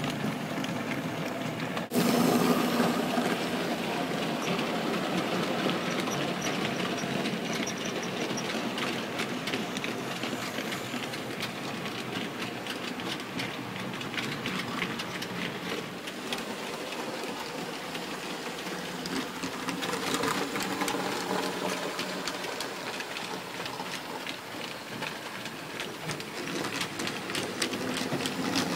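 OO gauge model goods train, hauled by a Bachmann SECR C class locomotive, running past on the layout: a steady whir from the model's electric motor with rapid fine clicking of small wheels over rail joints and pointwork. It turns suddenly louder about two seconds in and swells again near the end as the train comes close.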